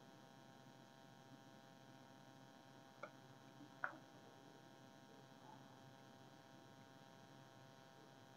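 Near silence: a faint steady electrical hum, with two faint short clicks about three and four seconds in.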